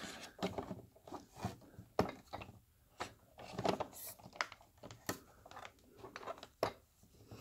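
Irregular handling noises: scattered clicks, light knocks and short rustles of plastic toy parts and packaging being moved and set down.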